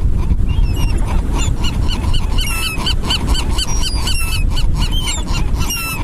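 A flock of seagulls squabbling over food, with many short overlapping calls and squawks several times a second over a steady low rumble.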